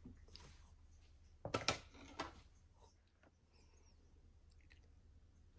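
A metal spoon scooping thick pesto into a small ceramic bowl: a few quick clinks and scrapes against the bowl about a second and a half in, with soft wet squishing.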